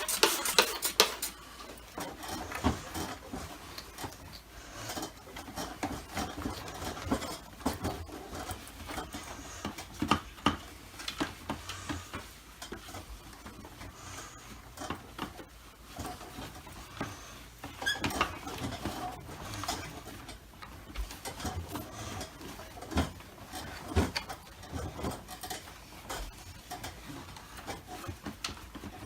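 Wiping and rubbing over the plastic body of a Dyson DC25 vacuum cleaner as it is cleaned off, with scattered light knocks and clicks from handling the machine.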